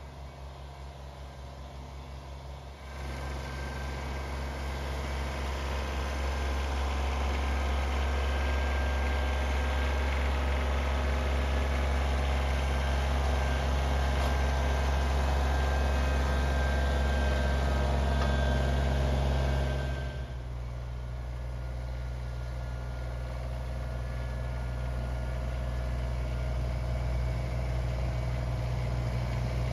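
Kubota BX2822A sub-compact tractor's three-cylinder diesel engine running steadily as it pushes its front-mounted snowblower through snow. It grows louder as the tractor approaches, drops abruptly about twenty seconds in, then builds again.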